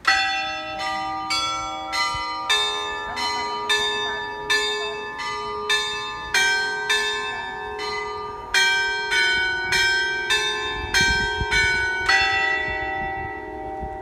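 Carillon bells of the Basílica de Begoña sounding the quarter-hour chime: a melody of about two dozen bell strikes, a new note every half second or so with a short break about eight seconds in. The last note comes after about twelve seconds and rings on.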